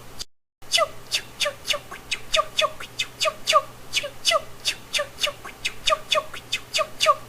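Person making a rapid string of sharp clicking chirps with the mouth, about four a second, each one dropping quickly in pitch. The sound cuts out completely for a moment near the start.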